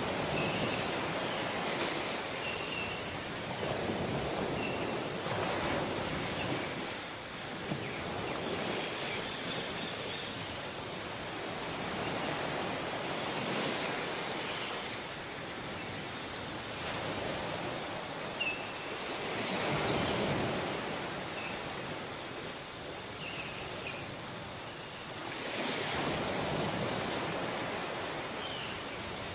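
Sea waves washing onto a tropical beach, the surf swelling and ebbing every few seconds. A few faint short high chirps come now and then.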